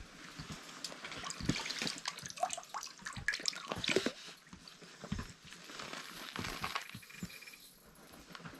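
Wet, crackly trickling with irregular small clicks, loudest a few seconds in: water and slush in an ice-fishing hole being stirred as fishing line is worked through it.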